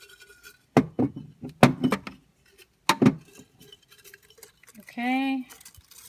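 A glass jar knocking against a desktop as it is handled and laid on its side, several sharp knocks with a brief clink in the first three seconds.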